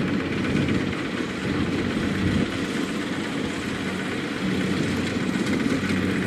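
Single-cylinder diesel engine of a two-wheel walking tractor running steadily as it pulls a loaded trailer across rice stubble, a constant even hum.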